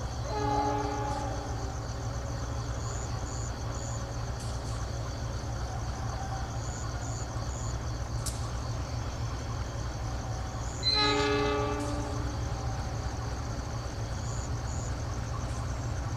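Diesel locomotive horn sounding twice: a short chord blast just after the start, then a louder blast of about a second and a half near the middle. A steady low rumble and high-pitched insect chirping run underneath.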